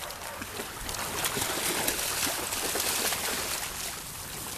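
Water splashing and sloshing as several dogs wade through the shallows of a pond, with many small irregular splashes.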